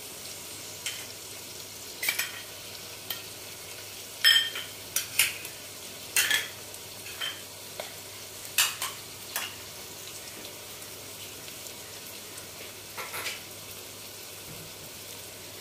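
Sliced onion, green chillies and ginger-garlic paste sizzling gently in oil in a stainless steel pot, frying toward golden brown. A steel spoon scrapes and clinks against the pot in scattered stirring strokes over the first ten seconds, pauses, and strokes again once about thirteen seconds in.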